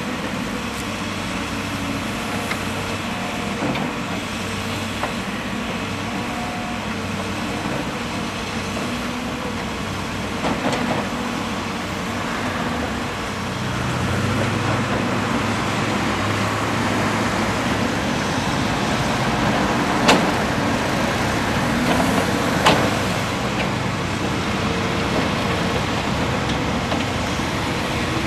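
Caterpillar crawler excavator's diesel engine running steadily as it digs, its note rising and growing louder about halfway through as it works harder. Two sharp knocks come a couple of seconds apart in the second half.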